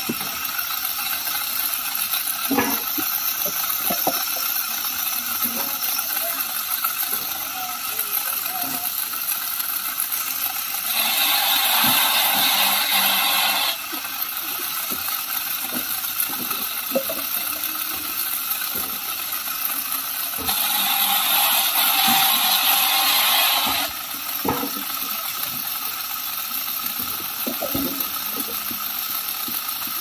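Firewood crosscut saw with a guarded blade on a swinging arm, running steadily and cutting through a log twice, each cut lasting about three seconds and louder than the free-running saw. Scattered knocks of logs being handled fall between the cuts.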